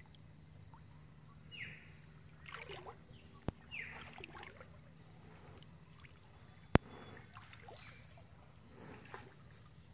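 Kayak being paddled quietly on calm water: soft paddle strokes and drips, with a sharp click about three and a half seconds in and a louder one nearly seven seconds in.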